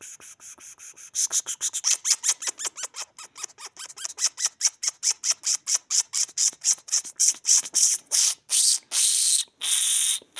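A person's breathless, unvoiced laughter: rapid breathy puffs, about five or six a second, growing louder, then a few longer breathy exhales near the end.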